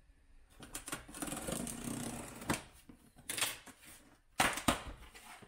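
A cardboard box being opened with scissors: a dense rasping scrape as the blades cut through the packing tape and cardboard, followed by a few sharp clacks and knocks of cardboard being handled, the loudest two near the end.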